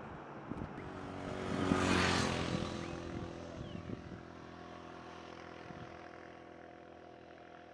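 An engine running steadily, with a rushing sound that swells and fades about two seconds in, like something passing.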